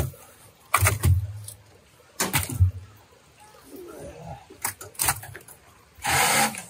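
Dead rainbow trout dumped into a tractor's steel front-loader bucket: two heavy thuds with wet slaps, about a second and two and a half seconds in, then a few lighter knocks and a short rushing noise near the end.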